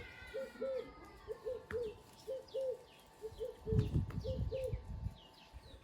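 Dove cooing in a steady run of short, soft coos, two or three a second, with smaller birds chirping behind it. A brief low rumble of handling noise comes about four seconds in.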